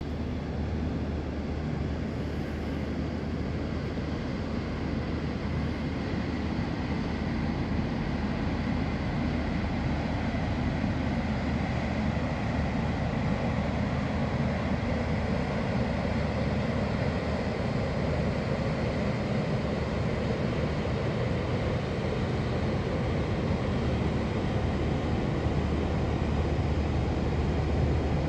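Cargo ship passing on the river, its engine giving a steady low drone that grows slightly louder toward the end.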